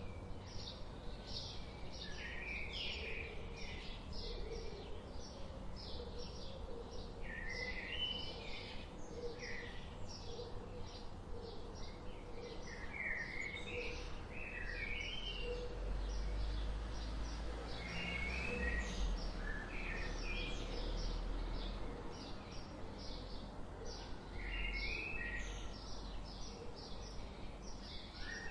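Several birds chirping: a dense run of short, high chirps throughout, with a short zigzagging phrase repeated every few seconds. Under them runs a low rumble that swells for a few seconds in the middle.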